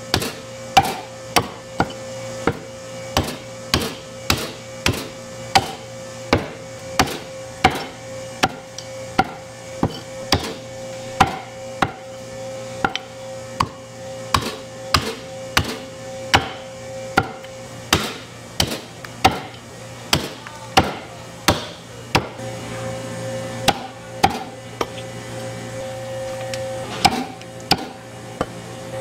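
Heavy cleaver chopping raw goat leg meat on a thick round wooden chopping block, sharp strokes at about one and a half a second, thinning to a few spaced strokes near the end, over a steady hum.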